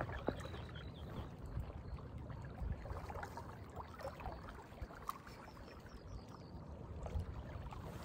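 Faint lake water lapping and trickling, over a steady low rumble.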